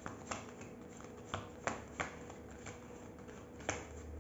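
Tarot cards being shuffled by hand: an irregular run of soft card clicks and snaps, a few sharper than the rest.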